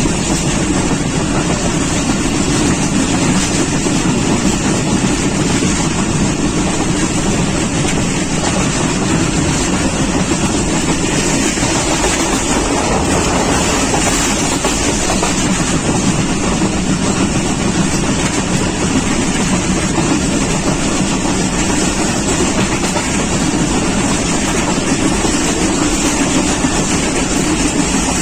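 Pakistan Railways Green Line Express passenger train running at speed: a loud, steady rumble and rush of wheels on the rails.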